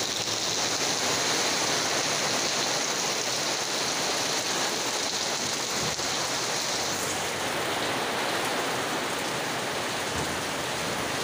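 Heavy rain pouring down and splashing on a wet concrete path in a steady hiss of storm rain. The higher splashing hiss eases about seven seconds in.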